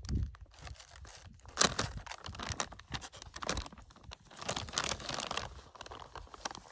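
Plastic instant-noodle packet crinkling and being torn open, in irregular crackles and rips, the sharpest about a second and a half in.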